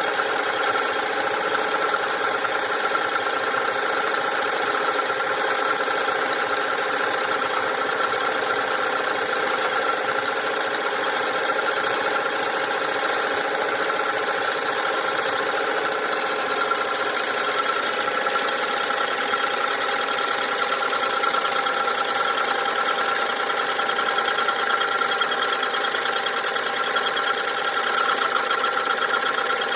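Wood lathe running steadily, its motor giving a constant whine of several steady tones over a rushing hiss.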